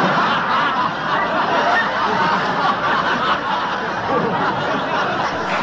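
An audience laughing at a joke's punchline: a steady wash of many people laughing together.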